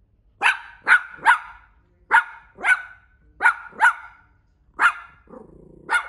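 Small dog barking in short, sharp, high yaps, about nine in all, mostly in quick pairs.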